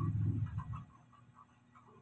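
Hot-air rework gun blowing while a resistor is soldered onto a phone circuit board, a low rumble that dies away a little under a second in. Faint regular ticking runs underneath, about four ticks a second.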